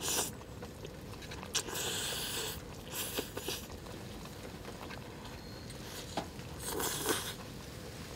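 A person eating cup ramen noodles: a short slurp at the start, then chewing with a few brief hissing sounds in between.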